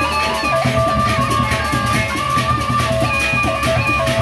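Baleganjur gamelan ensemble playing: hand-held crash cymbals clashing in a fast steady rhythm over barrel drums and gongs, with a row of small kettle gongs playing a stepping melody.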